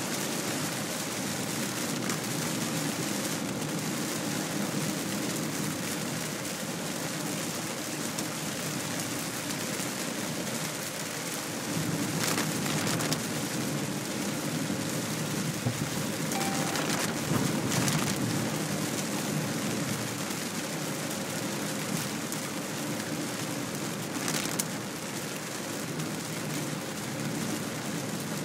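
Heavy rain pelting a moving car's roof and windscreen, heard from inside the cabin as a steady hiss that swells louder for several seconds about halfway through.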